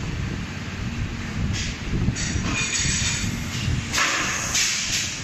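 Injection moulding machine running: a steady low mechanical hum with repeated short bursts of hiss.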